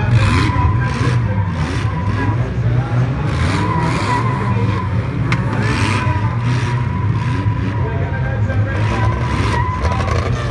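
A pack of banger-racing cars' engines revving together, the pitch rising and falling, with tyres spinning and skidding on the dirt track and a sharp knock about five seconds in.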